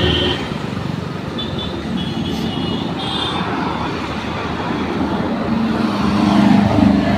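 Road traffic going past, a steady mix of engines and tyres, with one vehicle passing closer and louder near the end.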